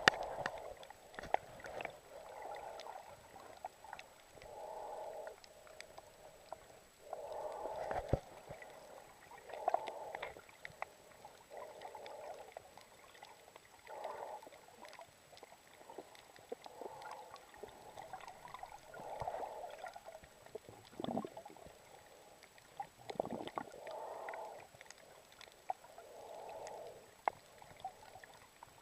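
Seawater sloshing and gurgling around the camera in muffled surges that return every two to three seconds, with small clicks and knocks in between.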